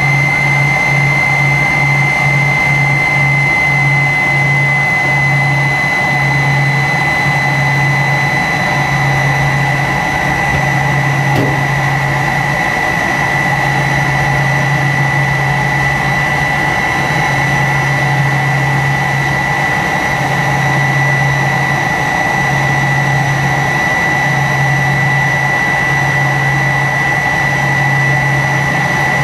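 Tupolev Tu-134's rear-mounted Soloviev D-30 turbofan engines heard from inside the cabin: a steady jet whine with a high tone over a constant rumble. Under it, a low hum throbs in a beat, about three pulses a second at first, slowing to about one every two seconds.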